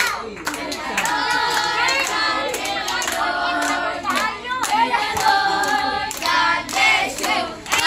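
A group of girls singing a birthday song together, with hand-clapping along to it.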